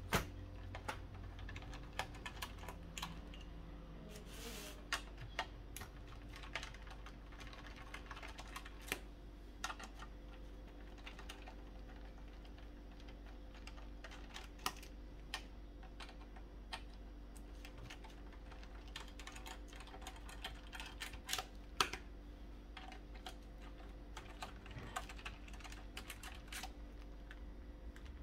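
Small screwdriver working screws out of the metal shield on an Amiga 500 Plus motherboard: irregular light clicks, ticks and taps of the driver and screws against metal and the table, over a faint low hum.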